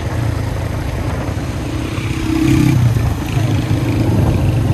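Motorcycle engine running as the bike rides along, with road noise; it gets louder about two and a half seconds in.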